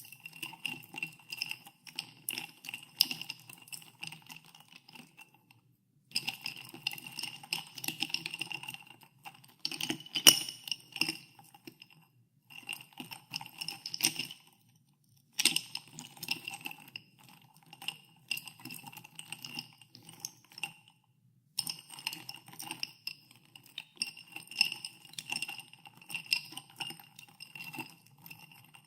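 Ice cubes being stirred in a glass of soda water, clinking in quick runs against the glass, which rings with each knock. The stirring stops briefly several times, and one sharper, louder clink comes about ten seconds in.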